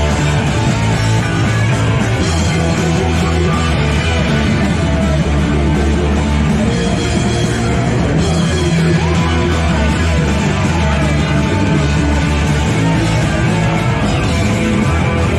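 Live punk rock band playing loud, with electric guitar to the fore.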